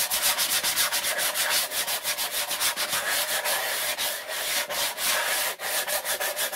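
Hand sanding: a sanding sponge rubbed back and forth in quick, even strokes over a round craft plaque, smoothing its rough top surface.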